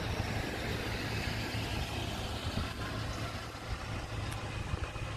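A car pulling up to a lowered level-crossing barrier and idling, over a steady low hum.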